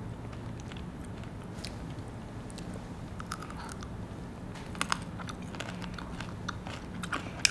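Close-up chewing of a kunafa-filled chocolate bar: soft mouth sounds broken by many small, crisp crunches of the shredded pastry, with a couple of louder crunches about five seconds in and again near the end.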